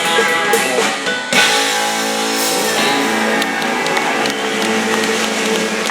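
Live country-rock band with electric guitar and drums playing the closing bars of a truck-driving song. About a second and a half in, the beat stops and a held final chord rings out.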